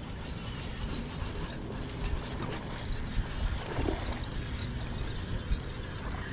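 Wind buffeting the microphone over open water: a steady, uneven low rumble with a faint wash of water noise.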